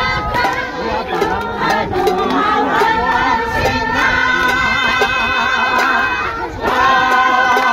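A crowd of men and women singing together in chorus, holding long notes, with hand-clapping. The singing dips briefly about six and a half seconds in, then comes back louder.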